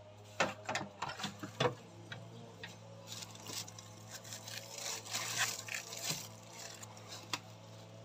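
Handling noise at an open chest freezer: a few sharp clicks and knocks in the first two seconds, then a stretch of rustling and scraping with ticks, over a steady low hum.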